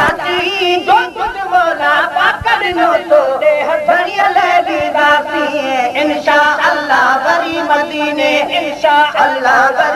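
Unaccompanied devotional singing of a naat: voices chanting a continuous, wavering, ornamented melody.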